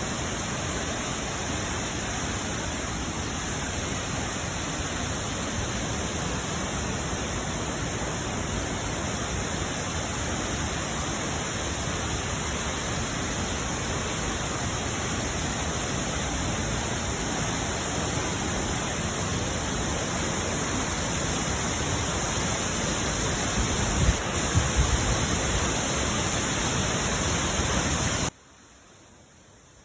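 Waterfall water rushing as a steady, even roar, with a few low thumps about three-quarters of the way through; it cuts off suddenly near the end.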